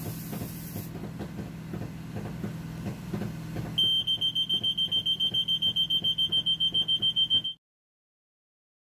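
A short hiss of aerosol test smoke sprayed at a ceiling smoke detector over a steady low hum. About four seconds in the smoke detector alarm goes off, a high-pitched rapid beeping of about eight beeps a second, showing the detector has sensed the smoke. The beeping cuts off suddenly.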